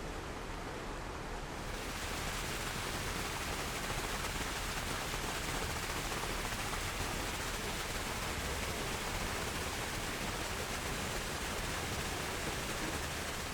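A steady rushing noise with no distinct events in it, growing fuller and slightly louder about two seconds in.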